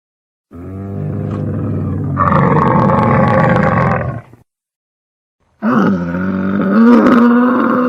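A camel calling twice. The first call is long, low and rough, and grows louder and brighter about halfway through. After a short break, a second long call follows with a steadier, clearer pitch.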